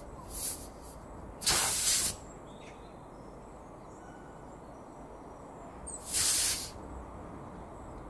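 Compressed air hissing out of a car tyre's freshly opened nail puncture in three short spurts, the second and third loud and about half a second each.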